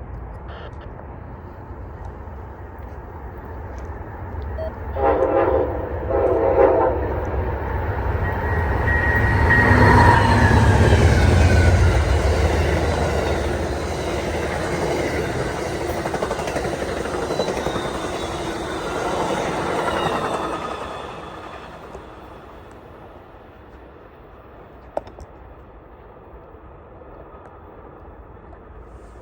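An Amtrak passenger train led by a Siemens ALC42 Charger locomotive sounds two short horn blasts, then passes. The sound swells to its loudest a few seconds later with a falling tone as it goes by, then fades away over about ten seconds.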